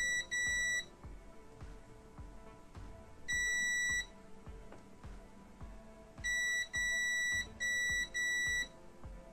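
Habotest digital multimeter's beeper sounding in steady half-second beeps as the probes touch the inverter's output MOSFETs: a pair at the start, one about three seconds in, then four in quick succession from about six seconds in. The beeps mark a short circuit on the H-bridge line.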